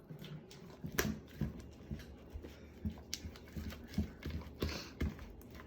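Slime being kneaded and squeezed by hand, making irregular sticky squelches with sharp clicks and pops, a few a second.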